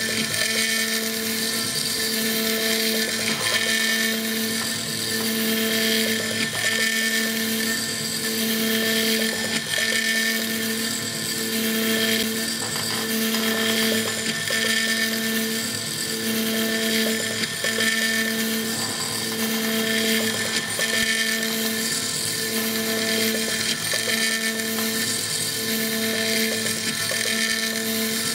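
CNC mill spindle running with a small end mill taking fine radial finishing passes on a Stone Hopea burl wood ring blank: a steady whine with a hum under it and a hiss of cutting, dipping briefly every couple of seconds.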